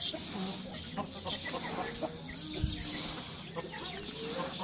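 Chickens clucking in short calls over the dry rustle of hands stirring mixed grain feed in a steel bowl, with one soft thump a little past halfway.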